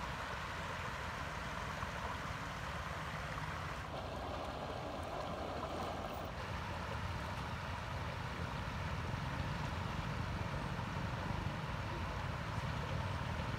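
Steady rush of shallow water flowing through a channel, with a low wind rumble on the microphone.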